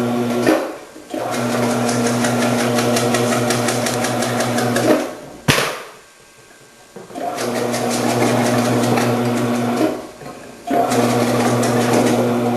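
Omcan HLC 300 vegetable processor's electric motor humming as its slicing disc cuts peppers, with a fine rapid chatter over the hum. It runs in several spells of a few seconds and stops briefly in between. There is a single sharp click about five and a half seconds in.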